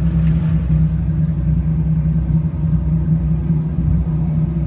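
Engines of a 1988 Ocean Yachts 48 SS motor yacht idling, a steady low rumble with a constant hum.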